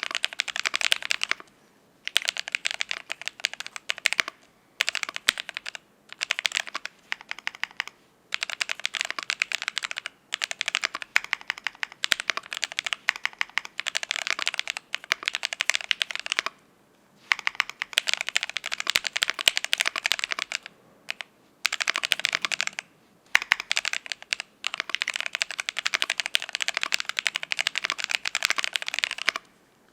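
Typing on a Cyberboard R3 mechanical keyboard with an aluminium plate, lubed ICY Silver linear switches and Kelowna transparent keycaps. Quick keystrokes come in runs of a few seconds, broken by short pauses.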